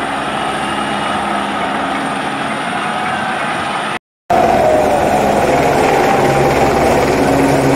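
Helicopter flying low overhead, a steady engine and rotor noise. The sound cuts out for a moment about four seconds in and comes back louder.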